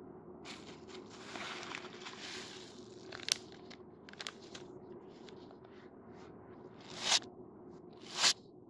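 Plastic candy packets handled and crinkled: a run of crinkling in the first few seconds, a few sharp clicks, then two short louder rustles near the end.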